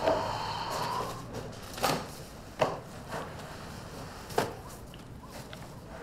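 A wooden creak that slides in pitch, then three sharp knocks on wood at uneven intervals, from the wooden floor and furniture of a small room.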